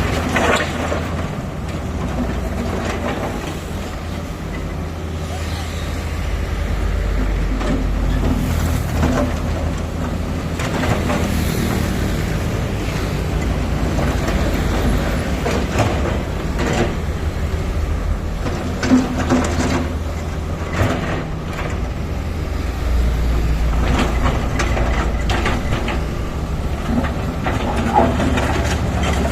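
Heavy diesel machinery running steadily with a low rumble, with occasional sharp clanks and knocks.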